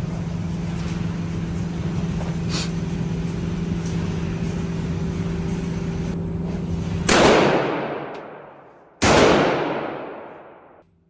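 A steady low mechanical hum, then two gunshots about two seconds apart, each trailing off in a long echo.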